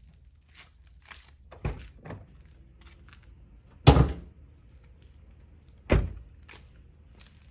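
Chevrolet Trax's driver door being opened, then a loud thunk about four seconds in as the hood release is pulled and the hood latch pops. The door is shut with a second sharp thunk about two seconds later.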